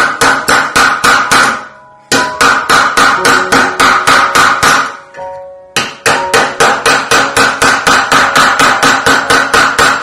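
Rapid hammer blows on metal, about five a second, each with a bright metallic ring, in three runs with short pauses about 2 and 5 seconds in.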